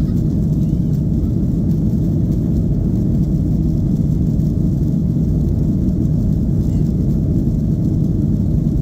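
Steady low rumble of a Ryanair Boeing 737's jet engines and airframe, heard from inside the passenger cabin as the airliner rolls along the ground before take-off.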